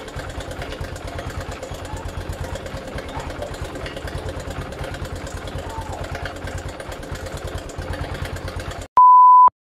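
Honda CB110 single-cylinder four-stroke engine idling with a rapid, regular clatter, which the mechanics put down to the timing chain tensioner arm flicking because its spring is too soft. Near the end the engine sound cuts off and a loud steady beep sounds for about half a second.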